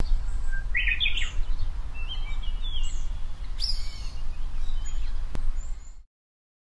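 Several wild birds chirping and whistling short calls over a low, steady rumble, with one sharp click about five seconds in; the sound cuts off abruptly about six seconds in.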